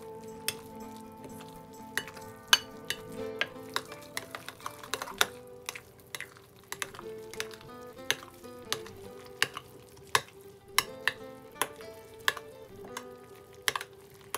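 A metal spoon stirring a thick, crumbly mixture in a glass bowl, with irregular sharp clinks and scrapes as the spoon knocks against the glass. Quiet background music runs underneath.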